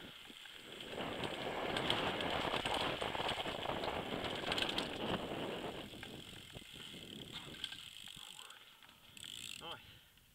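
Downhill mountain bike ridden fast over a rough dirt trail: a steady rattle of tyres, chain and frame with many sharp clicks, with the rear hub's freewheel ratchet ticking. It grows loud about a second in and eases off after about six seconds.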